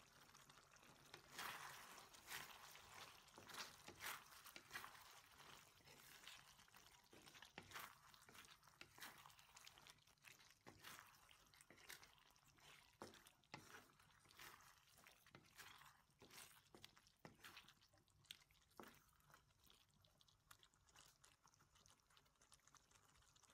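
Faint wooden spatula stirring pork in thick teriyaki sauce in a wok, with irregular scrapes and clicks against the pan over the soft bubbling of the simmering sauce. The strokes are densest early on and thin out near the end.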